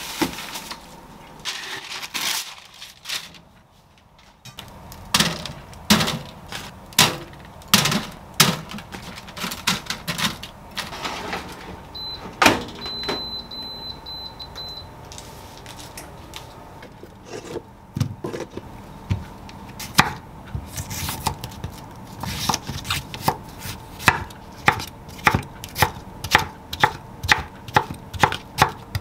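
Chef's knife slicing cucumber on a wooden cutting board, the strikes coming quickly and evenly, about two to three a second, in the second half. Before that there are scattered knocks of packets and containers being handled on the counter, and a short run of electronic beeps from an air fryer's control panel about halfway through.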